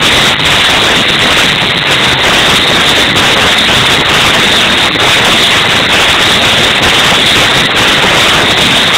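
Loud electronic music from a concert sound system, overloading the recording so that it comes through as a steady distorted crackle and noise with little clear tune.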